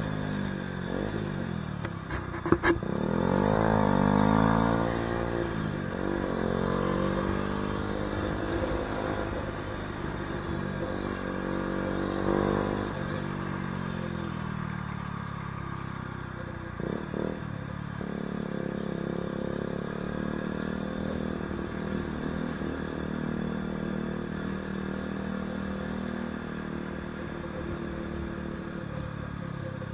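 KTM Duke 125's single-cylinder four-stroke engine under way, its pitch repeatedly dropping and climbing in the first half as the revs change, then holding steadier, with wind noise on the microphone. A couple of short sharp knocks, near the start and about halfway.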